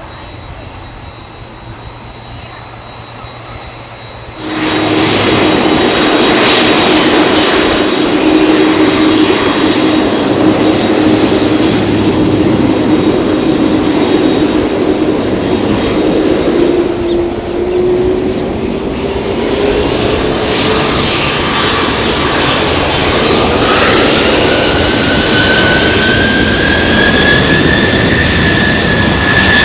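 Jet airliner's engines, loud, coming in abruptly about four seconds in, with engine whines that climb in pitch in the second half.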